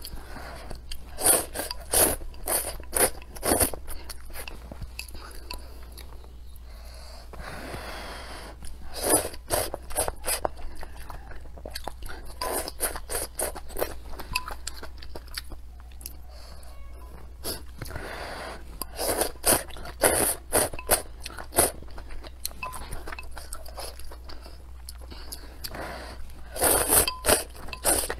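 Close-miked slurping of noodle soup and chewing, in clusters of sharp slurps every few seconds with quieter chewing between.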